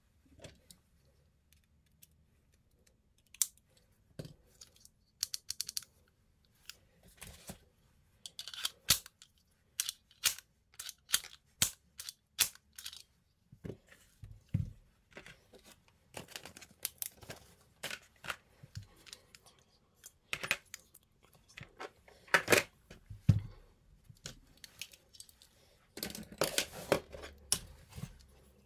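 Irregular metallic clicks and light knocks from a Springfield Armory 1911 pistol and its small parts being handled and fitted by hand, with a quick run of louder clatters near the end.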